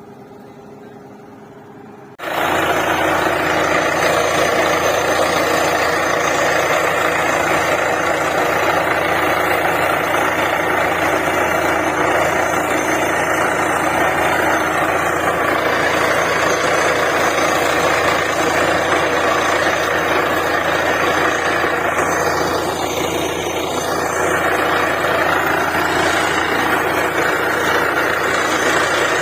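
DTH borewell drilling rig running: a lower engine hum, then about two seconds in the rig's diesel engine and compressor noise comes in suddenly, loud and steady, with a brief dip near the end.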